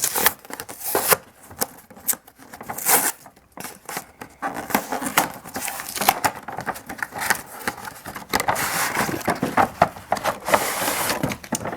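Hands opening a cardboard doll box and its plastic packaging: a run of scrapes, rustles, crinkles and small clicks as the doll is pulled free.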